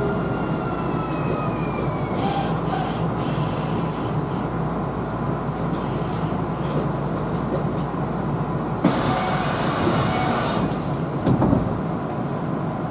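Kintetsu Series 21 electric train running, heard from the cab: steady wheel-on-rail rumble and motor hum, with a falling motor whine that fades out at the start. About nine seconds in a hiss rises for roughly two seconds, followed by a couple of dull thumps.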